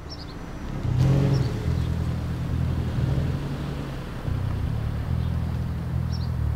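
A Mazda3 sedan's engine running as the car pulls forward along the street, with a louder brief rev about a second in.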